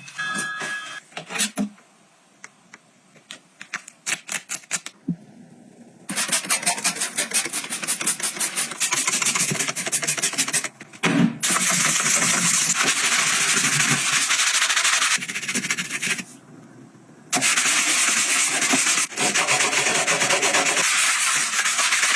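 Rapid rasping scrubbing strokes in three long stretches, after a few seconds of scattered clicks and taps.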